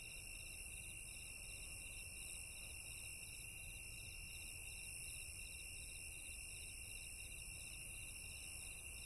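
Faint, steady night chorus of chirping insects: a rapid, even pulsing trill over a constant high hiss.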